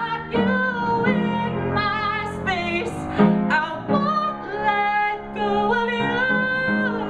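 A male voice singing a melody with vibrato and long held notes over piano accompaniment.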